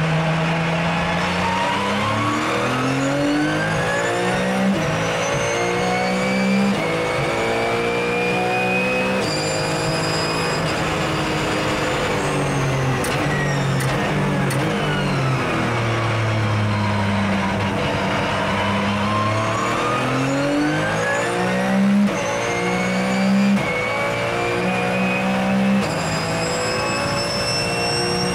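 Porsche 997 GT3 Cup race car's flat-six engine heard from inside the cabin at racing speed. Its note climbs through a string of quick upshifts, falls through downshifts to a low point about halfway through as the car slows for a corner, then climbs through the gears again. A gear whine over the engine sinks and rises with road speed.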